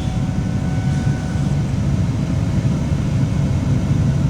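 2003 Ford Taurus 3.0-litre V6 idling just after starting, a steady low rumble.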